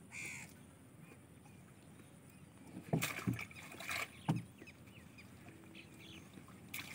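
A bamboo-framed mesh net being hauled up beside a wooden boat: a few sharp knocks and splashes about three to four and a half seconds in. A brief high call-like sound at the very start.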